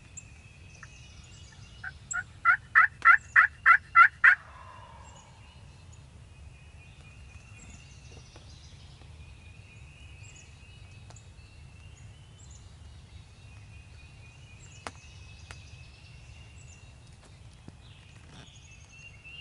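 Pot-style friction turkey call run as a series of about nine hen yelps, evenly spaced and building in loudness, lasting about two and a half seconds.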